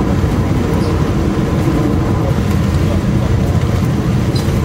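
Cabin noise of a high-speed catamaran ferry under way in rough seas: a loud, steady low drone from the engines and the hull running through the water, heard inside the passenger cabin.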